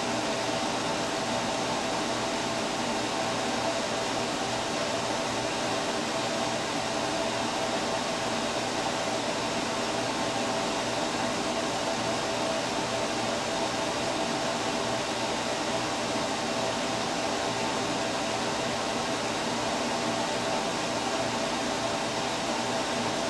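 Steady fan whir with a few faint, even hum tones underneath, unchanging throughout.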